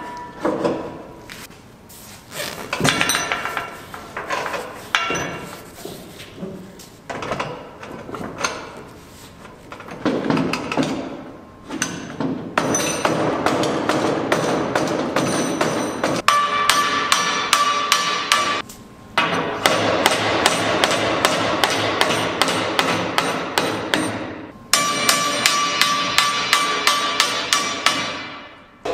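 Repeated hammer blows on steel parts, scattered at first and then, from about twelve seconds in, a steady run of about two blows a second with two brief pauses.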